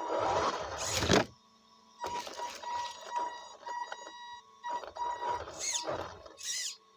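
Radio-controlled car's motor whirring in short throttle bursts, its high whine falling in pitch as it slows several times. A burst of rough driving noise in the first second cuts off abruptly.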